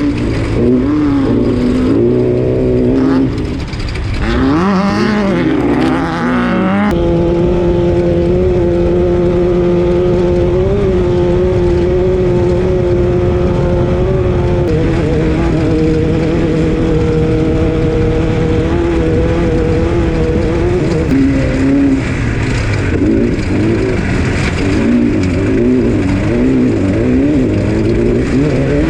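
Off-road race car engine under hard running. The revs rise and fall for the first few seconds, then hold at one steady pitch for about fourteen seconds, then rise and fall again near the end.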